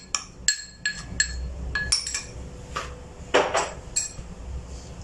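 Spoon tapping and scraping against a small container and the rim of a bowl as flour is knocked out into the larger bowl: a quick series of light clinks, about ten of them, stopping about four seconds in.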